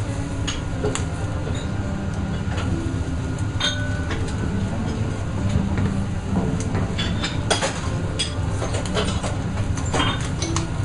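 Kitchen at a charcoal yakitori grill: a steady low rumble, with scattered sharp clinks and taps as metal skewers are turned on the grill rack.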